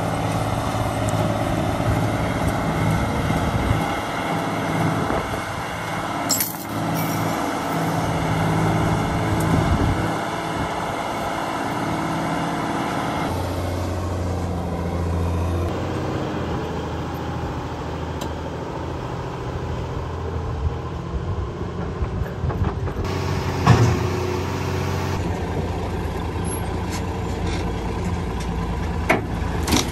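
Large military wrecker truck's engine running steadily under load, with one sharp knock about two-thirds of the way through.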